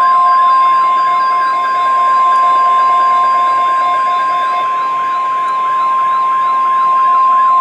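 NOAA Weather Radio 1050 Hz warning alarm tone, one loud steady pitch held throughout, with a fainter warbling tone underneath at about four sweeps a second. The tone marks an alert broadcast, here a severe thunderstorm watch.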